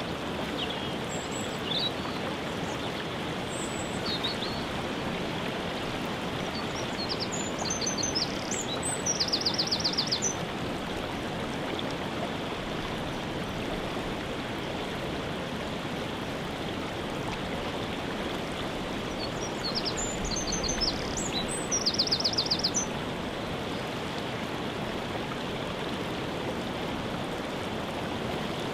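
Steady rushing of a waterfall, with a songbird singing over it. The bird sings twice, about 8 seconds in and again about 20 seconds in, each time a few high notes ending in a fast trill, with short chirps in between.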